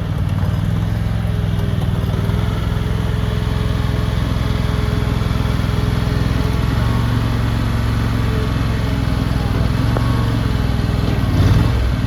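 Small gasoline engine of a compact skid steer loader running steadily.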